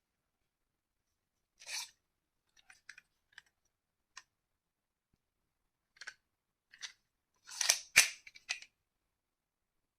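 Sharp plastic clicks and clacks from a shell-ejection toy pistol being handled and worked, scattered singly through the first half, then a short rasp and a loud sharp clack about eight seconds in, followed by a few quicker clicks.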